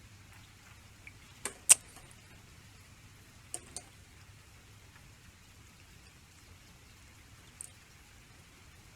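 Plastic Lego pieces clicking and knocking as the brick-built book model is handled: two sharp clicks about a second and a half in, the second the loudest, two more near the middle and a faint one near the end, over low room hiss.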